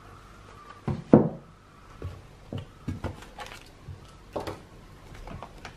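Hands handling a cardboard shipping carton and small boxed products, giving a series of light knocks and taps. The loudest comes about a second in.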